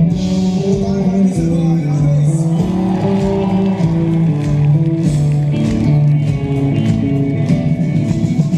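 Live rock band playing loudly through the concert PA: drums, electric guitars and bass under a melody line of held notes.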